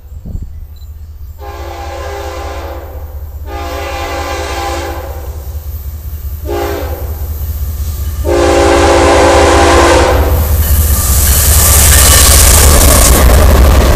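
Freight train locomotive horn sounding the grade-crossing signal: two long blasts, a short one and a final long blast, each a chord of several notes. The leading BNSF diesel locomotives then pass close by, and a loud rumble of engines and wheels with a hiss of rail noise builds over the last few seconds.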